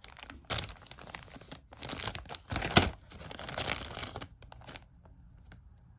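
Clear plastic bags holding plastic model sprues being handled, crinkling in bursts for about four seconds, then only a few light clicks.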